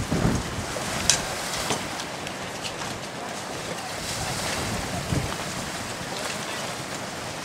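Water rushing along the hull of a Laser dinghy sailing fast in strong wind, with wind buffeting the microphone and sharp slaps of water about a second in and again shortly after.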